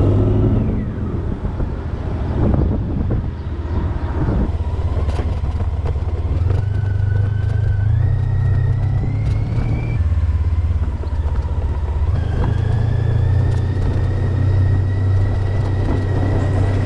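Honda ST1300's V4 engine running as the motorcycle rides along, with a higher whine that climbs in pitch several times as it speeds up. Scattered knocks come as it rolls over cobblestones.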